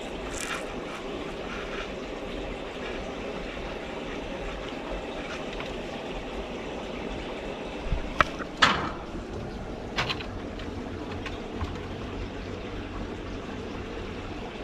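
Steady rushing background noise, with a few sharp knocks and rattles about eight and ten seconds in.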